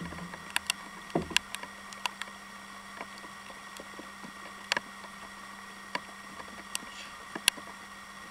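Irregular sharp clicks and light knocks from hands handling gear and a fish aboard a kayak, over a steady faint hum.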